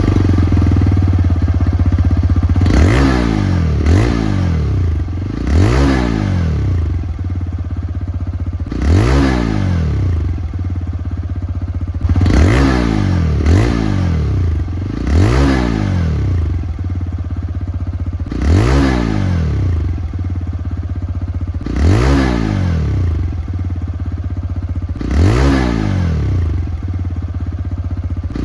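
TVS Raider 125's single-cylinder 125 cc engine idling, its exhaust note rising and falling as the throttle is blipped in about a dozen short revs, a second to three seconds apart.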